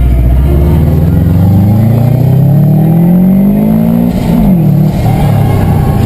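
Turbocharged Subaru Impreza flat-four engine under hard acceleration, its revs rising steadily for about three and a half seconds. About four seconds in the revs drop briefly at a gear change, then climb again.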